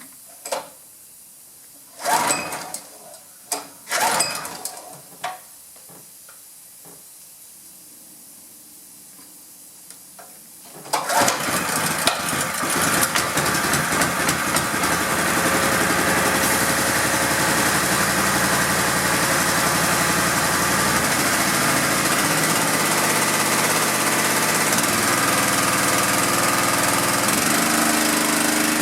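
Honda GX200 single-cylinder engine on a pressure washer being pull-started: a few short tugs on the recoil starter, then it catches about eleven seconds in and runs steadily. It is the first run after its carburetor was cleaned and its coil re-gapped; its note shifts near the end.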